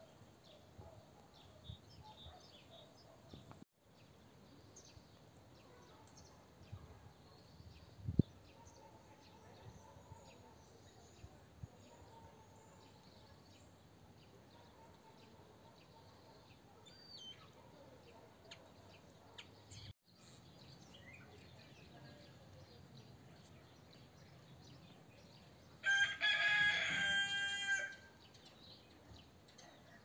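A rooster crows once near the end, a single call of about two seconds, over faint twittering of small birds throughout. A low thump sounds once about eight seconds in.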